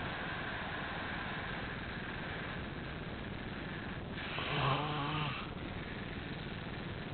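A sleeping man snoring. One pitched snore about halfway through lasts about a second, over a steady hiss. The snoring goes with severe nasal polyps and suspected sleep apnea.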